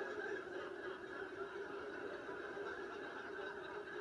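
Audience laughter, held at a steady level for several seconds.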